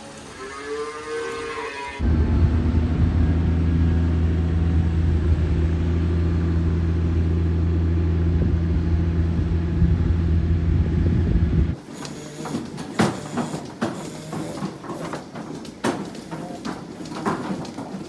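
A calf moos briefly. Then a large farm tractor's engine runs steadily and loudly as it drives over a silage pile, cutting off at about twelve seconds. After that come scattered metallic clicks and clanks of milking-parlour equipment.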